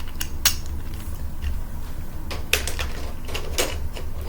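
Hard plastic clicks and clacks from a twisty puzzle being turned and handled: a few separate sharp clicks, bunched more closely in the second half.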